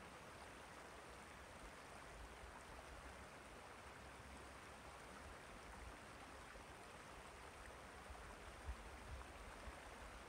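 Faint, steady rushing of the shallow Mississippi headwaters running out of Lake Itasca over rocks, with a few low wind bumps on the microphone near the end.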